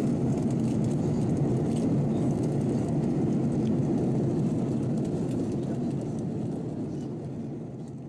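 Steady low rumble of an Airbus A330-200 cabin in flight, heard from a window seat: engine and airflow noise. It fades away over the last couple of seconds.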